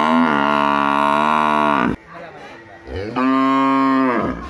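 A water buffalo's long, drawn-out bellowing call ends about two seconds in. After a short pause, a cow moos once for about a second.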